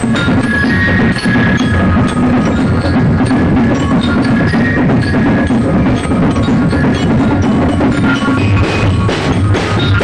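Percussion-heavy music: drums and sharp wood-block-like knocks over short held tones, loud and continuous.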